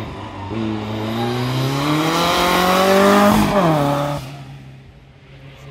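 A GT Turbo slalom car accelerating hard up the course towards the listener, its engine pitch rising steadily for about three seconds. About three and a half seconds in it goes by close, the pitch drops sharply, and the sound fades away.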